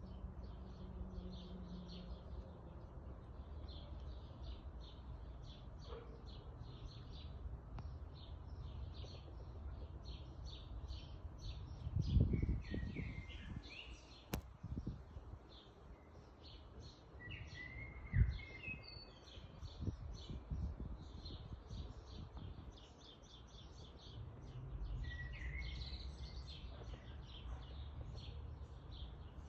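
Small birds chirping in quick, repeated high notes with a few sliding calls, over a steady low background rumble. Two dull bumps come midway.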